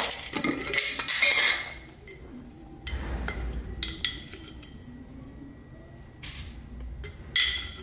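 Glass mason jar with a metal screw lid being handled: a quick run of metallic clinks and scrapes as the lid is worked off, then a few separate clinks and knocks of glass and metal.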